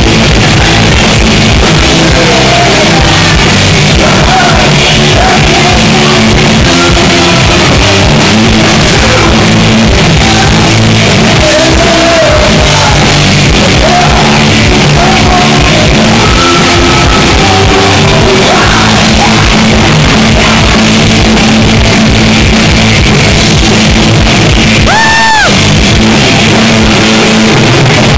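Live rock band playing loudly: heavily distorted electric guitar through Marshall amplifiers over a driving low end, with shouted vocals. The recording is overloaded, and near the end there is a brief high squeal.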